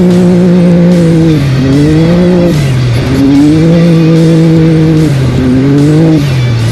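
Off-road race vehicle's engine running at steady high revs, dipping and climbing back up about four times as the throttle is lifted and reapplied.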